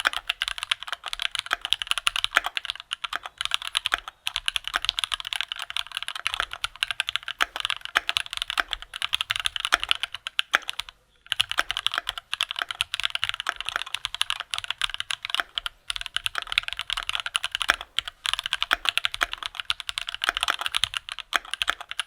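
Continuous fast typing on a Keychron Q2 prototype mechanical keyboard fitted with tactile Gateron G Pro Brown switches, a dense run of key clacks. There are brief pauses about 4, 11 and 16 seconds in.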